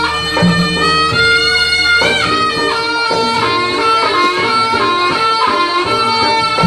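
Music for a barong dance: a melody of held notes that step up and down, over a steady low drone that drops out about halfway through.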